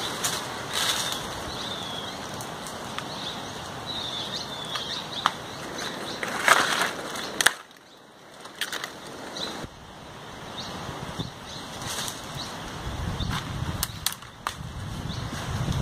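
Leaves and twigs rustling and crackling as tree branches are handled and leaves are plucked, loudest around the middle. A bird calls over it in repeated short falling chirps. A low rumble of wind on the microphone comes in near the end.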